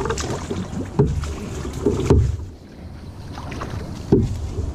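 Small boat being paddled: paddle strokes in the water with sharp knocks of the paddle against the hull about a second in, twice around two seconds and near the end, over a steady low rumble.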